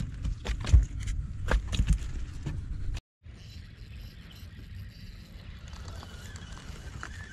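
A landed fish flopping on a fiberglass boat deck, giving a quick series of knocks and thumps. After a sudden cut, a quiet steady outdoor background with a few light ticks.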